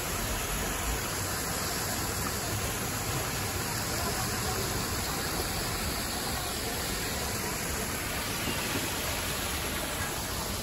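Steady rush of water pouring from stone wall fountain spouts and splashing into a pond.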